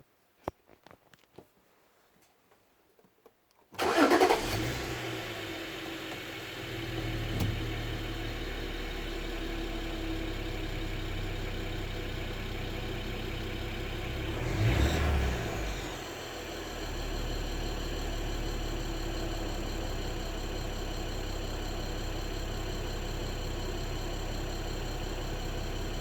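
BMW E92 325i's straight-six petrol engine starting about four seconds in, after a few faint clicks, with a brief flare of revs before settling to a steady idle. Midway it gives one short rev, then drops back to idle.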